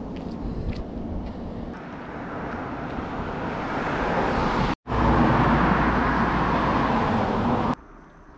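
Road traffic noise as a vehicle passes close by: a steady rush that grows louder, is loudest in the second half, and cuts off suddenly near the end, leaving only a faint background.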